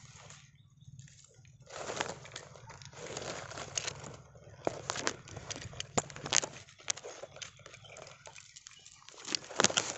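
Dry grass rustling and crackling with scattered sharp clicks as a landed fish flops on the ground and is handled, the loudest cluster of clicks near the end.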